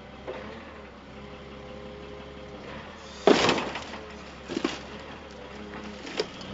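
A loader's engine and hydraulics run with a steady hum while SAS Scorpion engine-puller forks clamp into a scrap car's engine bay. About three seconds in comes a loud crunch of breaking metal and parts, a shorter crunch about a second later, and a sharp snap near the end as the engine is wrenched loose.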